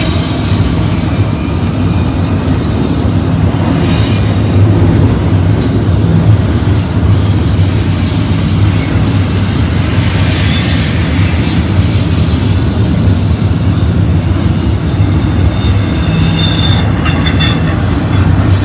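BNSF double-stack intermodal freight train rolling past close by: a loud, steady rumble of steel wheels on rail, with thin high-pitched wheel squeals coming and going a few times.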